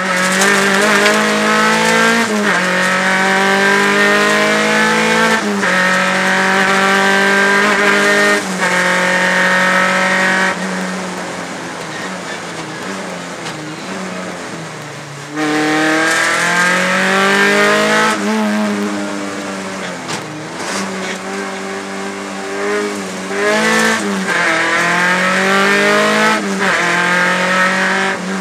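Rally car engine heard from inside the cockpit, accelerating hard through the gears: its pitch climbs and drops back at each upshift, three times in the first ten seconds. About halfway through it lifts off and runs quieter and lower for several seconds, then pulls hard again with more upshifts.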